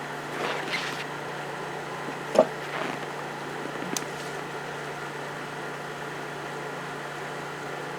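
A steady low mechanical hum, with a sharp knock about two and a half seconds in and a lighter click about a second later.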